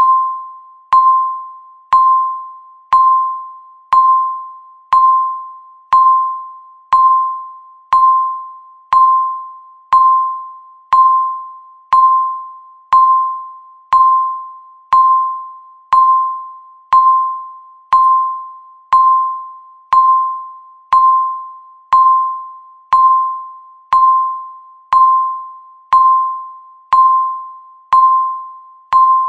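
Countdown timer beeping once a second: a single mid-pitched electronic tone that starts sharply and fades away, marking off each second of the countdown.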